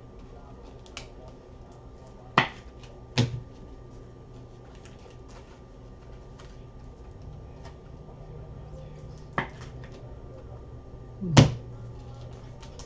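Trading cards and packs being handled on a desk: scattered light clicks with four sharp taps, the loudest about eleven seconds in.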